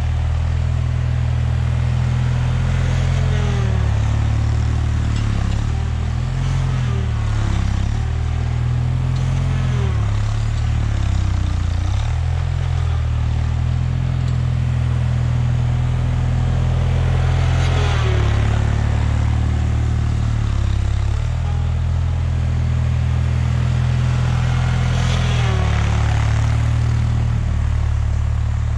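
The Kohler K582 opposed-twin engine of a 1979 Bolens HT-23 garden tractor running steadily under load while plowing snow, its pitch dipping and recovering every few seconds. A higher whining tone dips and rises along with it, and there are two louder rushing swells, one a little past the middle and one near the end.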